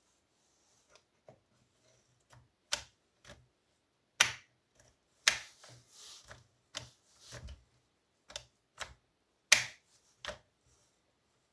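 Hand work on a Partner 410 chainsaw's carburettor parts: irregular sharp clicks and taps, about a dozen, with the loudest about four, five and nine and a half seconds in.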